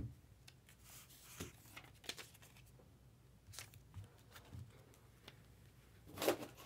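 Quiet small-room tone with faint, scattered clicks and rustles of handling and movement at a table, and one louder brief noise about six seconds in.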